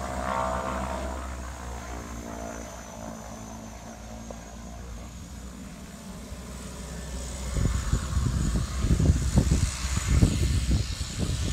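Twin turboprop engines of a DHC-6 Twin Otter running as it taxis away, their propeller hum and steady tones fading over the first few seconds under a faint high turbine whine. From about halfway through, irregular low gusts buffet the microphone and become the loudest sound.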